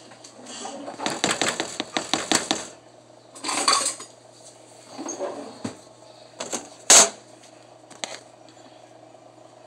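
Cornstarch poured from a box into a plastic tub and worked by hand: a fast run of crackly crunches lasting about two seconds, then a few shorter rustling bursts. A single sharp knock about seven seconds in is the loudest sound.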